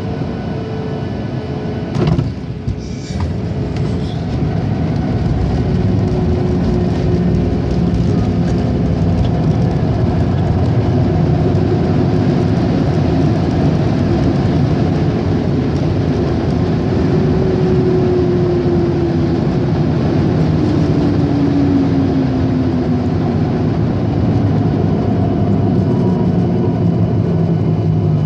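Boeing 737-800 cabin noise on landing: a sharp thump about two seconds in, like the wheels touching down, then a louder steady rumble of the rollout with faint whining tones slowly falling in pitch.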